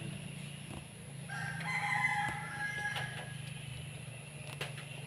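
A rooster crowing once, about a second and a half in, over a steady low hum.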